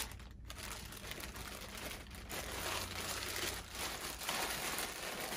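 Clear plastic bag crinkling irregularly as a small device is unwrapped from it by hand.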